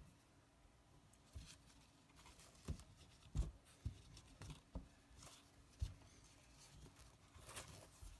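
Faint, scattered light taps and rustles of hands handling a phone and a microfiber cloth on a desk, with a few sharper taps in the middle.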